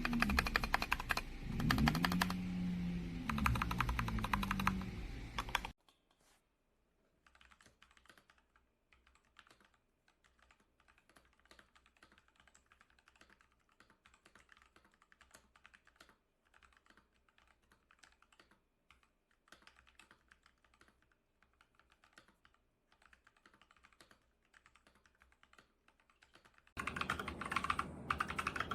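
Typing on a Rakk Pirah 66 mechanical keyboard with Gateron Milky Yellow linear switches: a fast, dense stream of keystroke clacks. Loud for the first several seconds, then much fainter for about twenty seconds, then loud again near the end.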